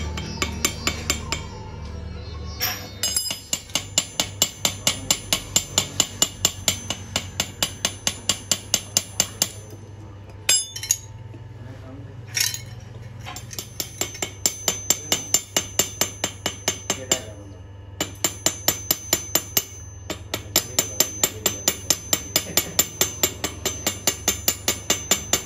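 Rapid light hammer taps on a steel hub housing, about four a second, each strike ringing metallically, in runs broken by short pauses.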